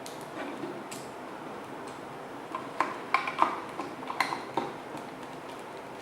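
A quick run of about a dozen light clicks and clinks of small hard objects, bunched together over about two seconds in the middle, over a steady low hiss.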